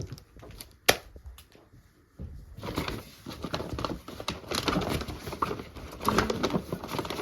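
Items and packaging being handled: a single sharp click about a second in, then steady rustling and crinkling of plastic wrapping with small clicks.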